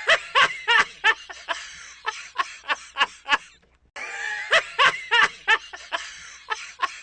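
A snickering laugh sound effect: quick, short "heh" pulses that grow fainter and further apart, played twice with a brief pause between.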